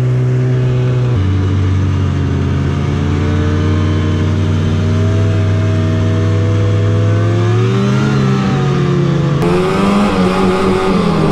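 Yamaha VK 540 snowmobile's two-stroke engine running under way. About a second in its pitch steps down and then holds steady; near the end it rises and wavers with throttle changes.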